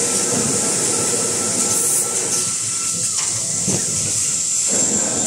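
Automatic toilet-roll and kitchen-towel wrapping machine running: a steady din of moving parts with a strong high hiss and a thin steady tone. The lower clatter eases for a second or two in the middle.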